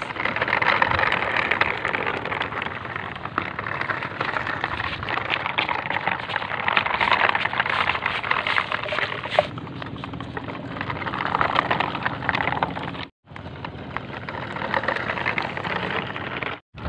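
Steady crackling, rustling noise with no clear pitch, cut off briefly twice in the second half.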